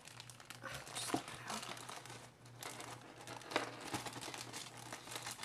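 Thin clear plastic packaging bag crinkling and rustling in the hands as it is handled, irregular with a few sharper crackles.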